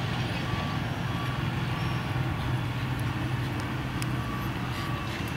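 A vehicle's reversing beeper sounding in a steady series of short beeps over a low, steady engine hum.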